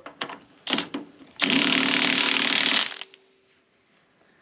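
Power tool driving a bolt: two short blips, then one steady run of about a second and a half.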